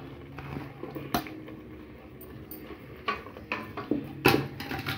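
A spatula stirring sliced onion and green chillies into ginger-garlic paste in an electric cooker's pot, knocking and scraping against the pot a few times, loudest near the end, over a low steady hum.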